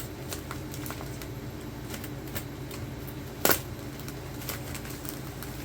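Packaging being handled and unwrapped: scattered light clicks and taps, with one sharper knock about three and a half seconds in, over a steady low hum.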